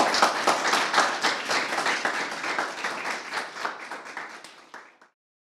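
Audience applauding, loudest at the start and thinning out as it fades, then cut off abruptly about five seconds in.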